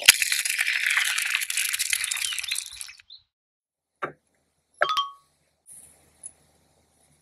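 A tiny seasoning packet crinkling as it is shaken out over noodles for about three seconds. Then two light clinks from a miniature pot, the second with a short ring.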